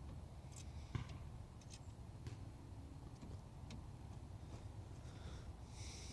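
Faint, scattered clicks and light taps of small parts being handled during a steering-wheel hub install, over a low steady hum.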